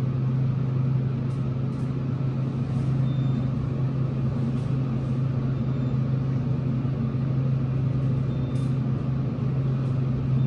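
Modernized Dover traction elevator car travelling upward, heard from inside the cab: a steady low hum and rumble of the ride.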